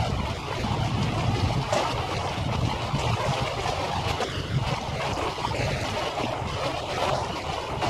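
Waterfront ambience played back five times fast: a steady noisy rush of wind on the microphone and water, with a low rumble underneath.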